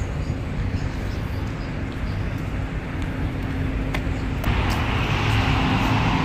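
Road traffic noise on a town street: a steady low rumble, with a louder rushing hiss coming in about four and a half seconds in.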